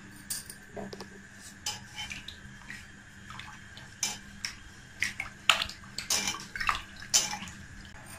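Spatula stirring sugar and water in a non-stick kadai, dissolving the sugar for a syrup: light taps and scrapes against the pan with water swishing, busiest in the second half.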